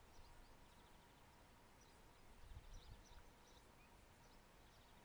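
Near silence: faint open-air background with a few faint, short, high chirps, typical of distant small birds.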